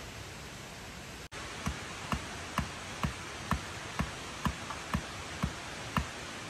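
A steady rush of water in the background; from about a second and a half in, a digging tool strikes earth and stone in an even rhythm, about twice a second.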